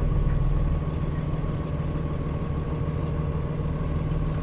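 Transit bus engine running as the bus creeps slowly forward, heard from inside the cabin: a steady low drone with a faint, thin whine above it.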